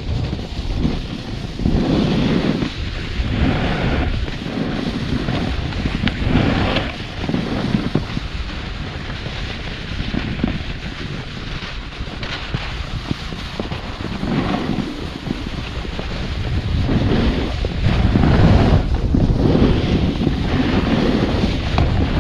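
Wind rushing over a GoPro action camera's microphone during a snowboard run, mixed with the board scraping and hissing over packed, chopped-up snow. The noise swells several times as the board turns and is loudest near the end.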